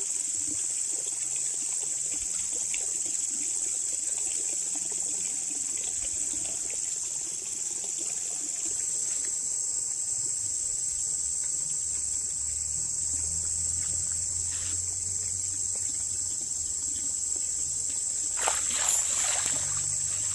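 Steady insect chorus: a continuous high-pitched shrill buzz, with a few brief noisy sounds near the end.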